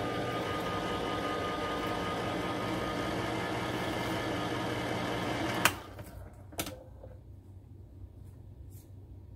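Electric can opener running steadily as it turns and cuts around the lid of a steel soup can, then stopping with a sharp click about five and a half seconds in, followed by another click about a second later.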